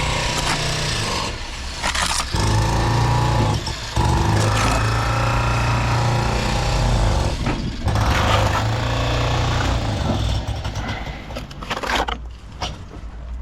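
Jackhammer running in long bursts, stopping briefly a few times.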